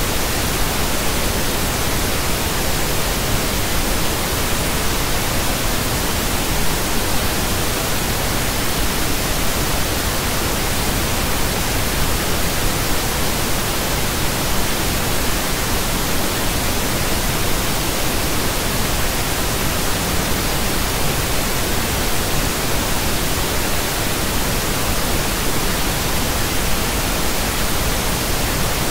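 Pink noise: a steady, even hiss spread across the whole range of pitch, unchanging throughout.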